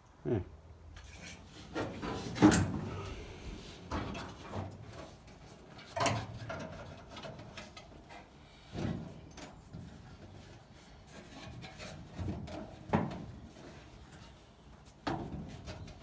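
Scattered knocks and clunks from car bodywork being handled and fitted, about half a dozen spread out, the sharpest a couple of seconds in.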